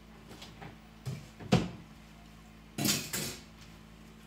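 A plate and cutlery knocking and clattering as they are thrown away: a few light knocks with one sharp knock about a second and a half in, then a rougher, noisier clatter about three seconds in.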